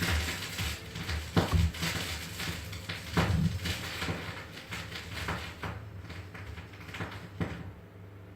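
Broken vinyl LP playing on a turntable: faint, distorted music under a steady hum, with a loud click about every two seconds, once per turn, as the break passes under the stylus. The sound fades out near the end.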